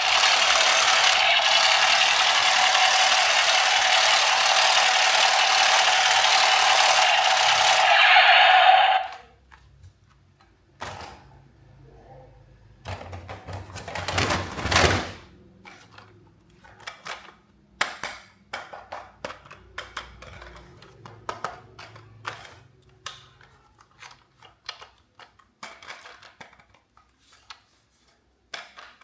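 A loud steady hiss that cuts off suddenly about nine seconds in, then scattered clicks, taps and knocks of hard plastic toys being handled.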